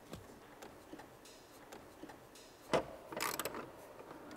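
Quiet clicks and scrapes of a screwdriver driving the mounting screws into a blower motor's flange, with a sharper knock a little past halfway.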